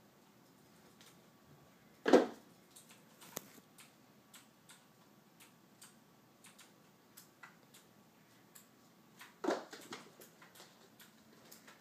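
A cat playing with a small toy on a hardwood floor: light scattered ticks and clicks, with two louder thumps, one about two seconds in and another about seven seconds later.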